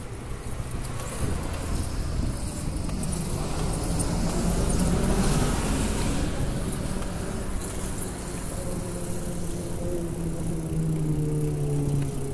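Road traffic going by: a car passes, loudest about five seconds in, and near the end a passing engine's note rises and falls, over a steady low rumble.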